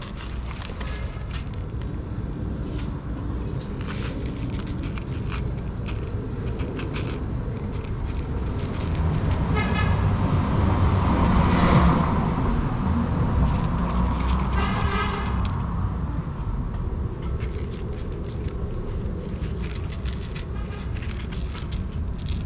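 Street traffic: a steady low rumble, with a vehicle passing close and swelling loudest about halfway through, and two brief high-pitched tones. Faint crunching clicks from a cat chewing dry kibble.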